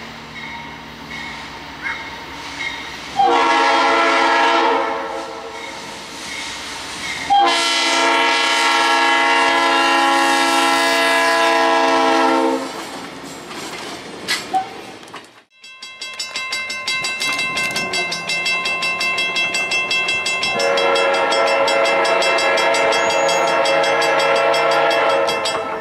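Diesel locomotive air horn sounding: a short blast, then a long blast of about five seconds, then after a break a second long blast.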